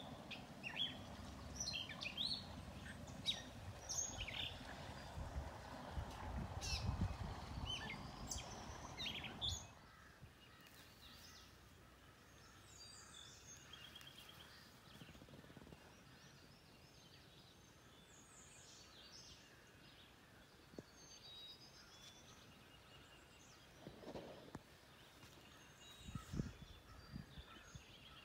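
Wild birds chirping and calling on and off, with wind rumbling on the microphone for about the first ten seconds; after that the bird calls carry on over a quieter background.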